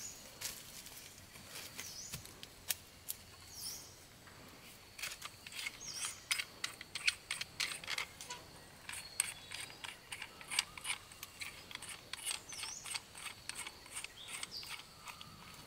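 A knife whittling a wooden stick: short, quick scraping and clicking strokes of the blade on the wood, sparse at first and coming thick and fast from about five seconds in. Birds give a few short chirps now and then over a faint, steady, high insect hum.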